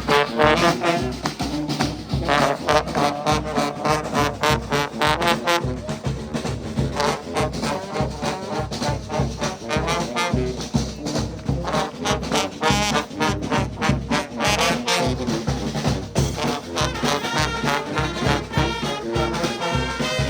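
Street brass band playing an up-tempo tune, trombones and trumpets over a steady beat.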